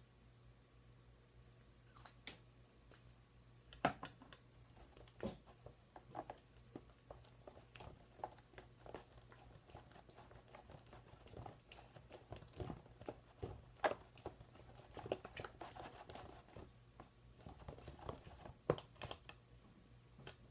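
Spoon stirring glue slime mix in a bowl: faint, irregular clicks and knocks of the spoon against the bowl, over a faint steady low hum.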